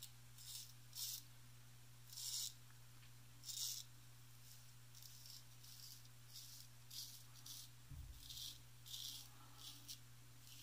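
Wade & Butcher 7/8 full-hollow-ground straight razor scraping through lathered stubble on the cheek: about a dozen short, hissy strokes at an uneven pace, an across-the-grain pass, over a faint steady hum.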